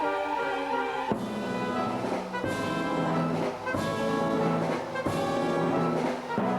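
Symphony orchestra playing, with the brass prominent over the strings: held chords that change about every second and a half.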